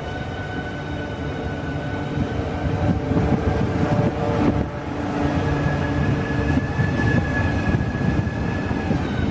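Southeastern Class 395 'Javelin' electric multiple unit moving past along the platform: wheel-on-rail rumble under a steady traction-motor whine of several tones, the highest tone rising a little in pitch about halfway through as the train gets louder.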